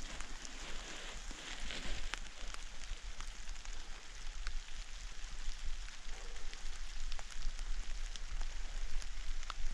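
Outdoor ambient noise: a steady hiss with scattered faint ticks over a low rumble.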